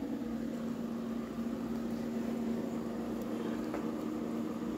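A steady low machine hum with a few even tones, like a fan or other running motor, holding level throughout, with one faint click near the end.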